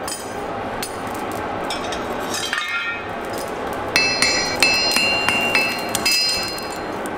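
Blacksmith's hammer striking hot iron on an anvil: a few light ringing clinks, then from about four seconds in a run of sharp, ringing blows at about three a second, over a steady rushing noise.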